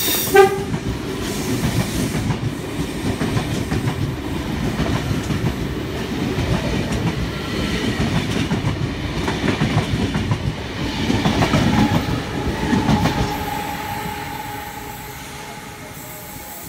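V-set double-deck electric intercity train running through the platform at speed, its wheels clattering rapidly over the rail joints; the sound fades away over the last few seconds as the train passes.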